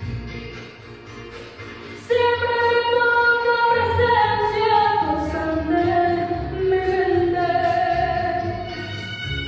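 A young girl singing into a microphone over backing music. After a quieter instrumental stretch, her voice comes in about two seconds in with long held notes that step down in pitch.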